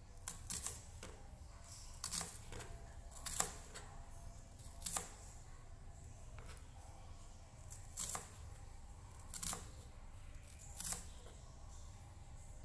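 Kitchen knife slicing through an onion and knocking on a plastic cutting board: about eight sharp, separate cuts a second or two apart, over a low steady room hum.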